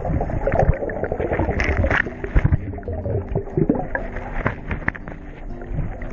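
A boat under way on the water, its motor running, with a string of knocks and splashes.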